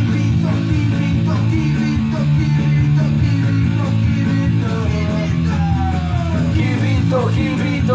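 Rock song playing: guitars, bass and drums with a sung vocal line.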